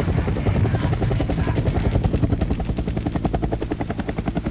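A steady, rapid, rhythmic chopping thud, about seven beats a second, like rotor blades.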